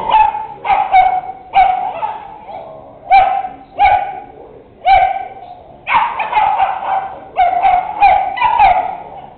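Bedlington and Wheaten terriers barking and yipping as they tussle: short, high-pitched barks in irregular runs, roughly one or two a second.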